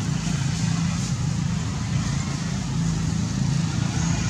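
Steady low rumble of a running engine.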